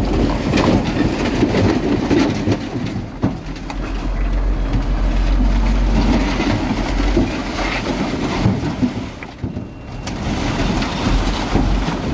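Heavy earthmoving machinery running, a dense, uneven rumble that eases briefly near the end.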